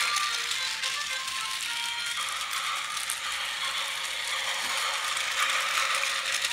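Battery-powered toy circus train running on plastic track: its small motor and gears give a steady rattling whir as the carriages roll. A short tinkly tune fades out in the first two seconds.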